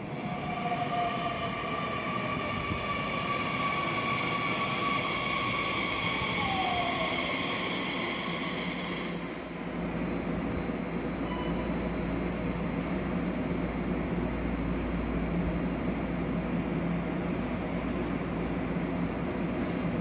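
Nishitetsu electric train at a station platform: high squealing and whining tones, two of them falling in pitch, stop about nine seconds in. A low steady hum and rumble then carry on.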